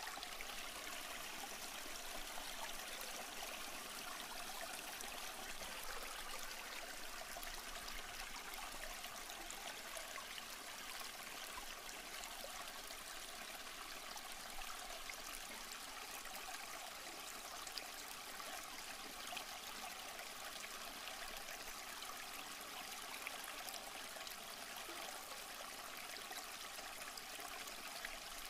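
A river running steadily: an even, unbroken rush of flowing water.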